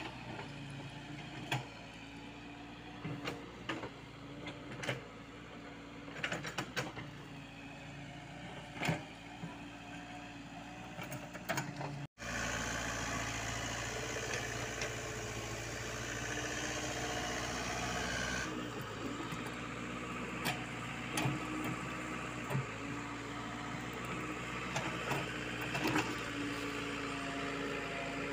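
Komatsu PC50UU mini excavator's diesel engine running steadily as it digs, with scattered knocks and clanks from the bucket and arm. The sound cuts out for a moment about twelve seconds in and comes back louder.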